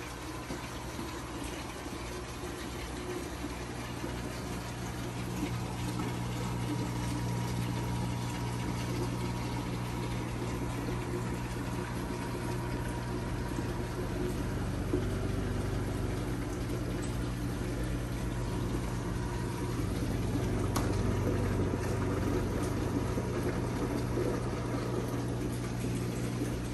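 Reef aquarium's pumps and circulating water running: a steady low hum under a continuous rushing, trickling water noise.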